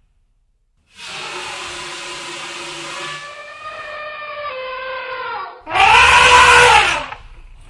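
Elephant trumpeting: a long call of about four seconds that settles into a steady, slightly falling tone, then a shorter, louder blast that rises and falls in pitch.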